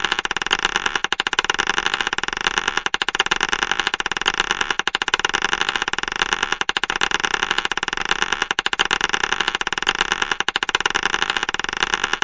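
Glass marbles clattering together: a dense, continuous stream of rapid clicks, swelling and easing every second or two.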